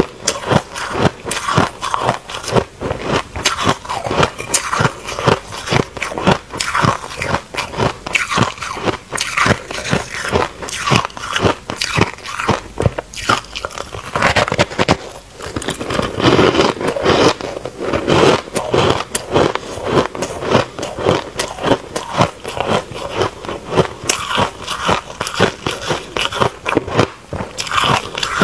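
Close-miked biting and chewing of pressed shaved-ice blocks: a dense, continuous run of crisp crunches and crackles as the soft, grainy ice breaks between the teeth.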